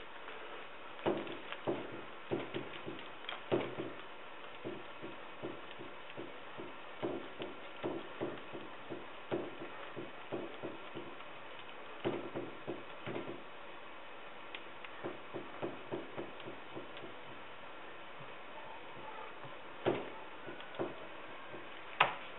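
A laminating tool worked over resin-soaked fiberglass cloth in a mold to push out air bubbles, making irregular soft taps and wet clicks a few a second, with two sharper clicks near the end.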